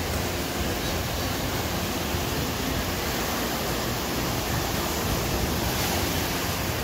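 Surf breaking and washing up a sandy beach: a steady rush of water that hardly rises or falls.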